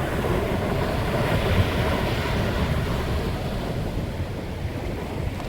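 Sea waves washing on the shore, a surge swelling in the first couple of seconds and then ebbing, with wind buffeting the microphone.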